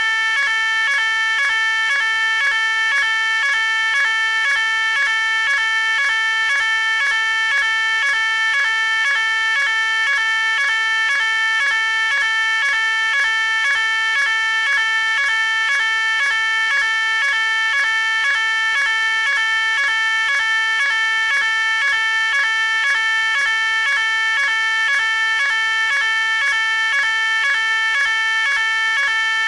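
Fire alarm sounding continuously: a loud, steady electronic alarm tone that pulses rapidly and evenly without changing pitch.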